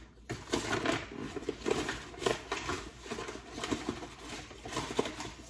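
A paper flour bag rustling and crinkling while self-rising flour is scooped out with a measuring cup, in a run of short, irregular scrapes and rustles.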